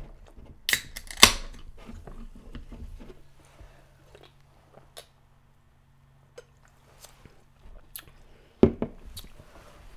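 Close-up eating sounds: chewing and mouth noises, with two loud sharp clicks about a second in as an aluminium soda can is handled. These are followed by a quieter stretch of soft sounds while drinking from the can, and another sharp mouth click near the end.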